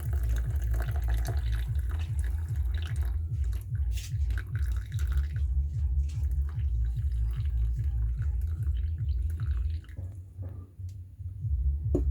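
Stovetop moka pot gurgling and sputtering over the flame as the last of the brewed coffee is pushed up, the sign that it has finished brewing. It runs over a low, rapidly pulsing rumble that eases off for a moment near the end.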